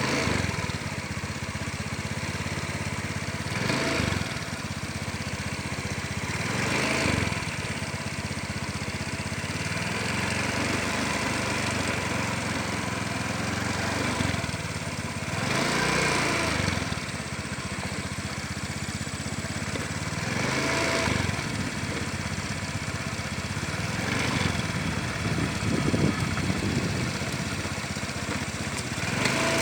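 Small engine running steadily at low speed, its pitch swelling up and back down five or so times.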